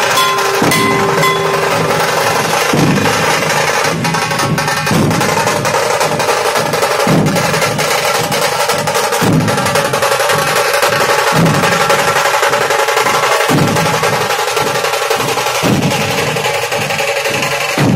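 Dhol-tasha troupe playing: many large barrel dhols struck together in heavy beats about every second or two, under a constant fast rattle of small tasha drums.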